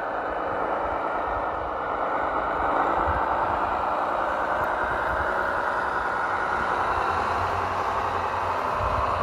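Steady truck-engine running sound from a scale RC truck, over a low rumble with some rattle.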